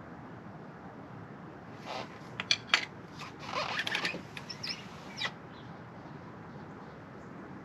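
Metal hand tools clinking and rattling: two sharp clanks about two and a half seconds in, then a second or so of quicker clicking and rattling, over a faint steady background hum.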